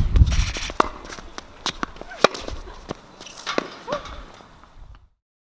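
Tennis rally on a hard court: sharp racket-on-ball hits come about every second and a half, with shuffling footsteps between them and a low rumble in the first half-second. The sound cuts out abruptly to silence about five seconds in.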